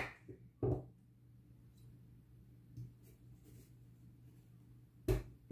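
Chef's knife cutting through a carrot and striking a wooden cutting board: a sharp knock about a second in and another near the end, with a few faint light taps between.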